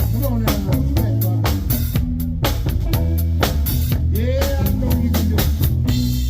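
Live blues band playing: a drum kit keeping a steady beat over a bass line, with a lead line of sliding, bent notes.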